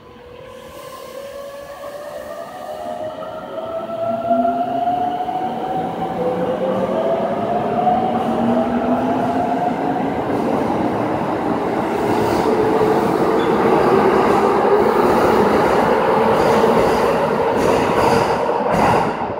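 Keikyu 600 series electric train pulling out of an underground station. Its motors give several whines that climb in pitch in steps as it gathers speed, over wheel and car noise that builds over the first few seconds and stays loud as the cars pass. The noise drops sharply near the end as the last car clears.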